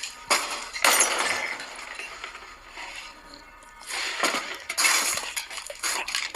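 A series of sudden crashing and clinking noises in several separate bursts, a couple of them lasting about half a second.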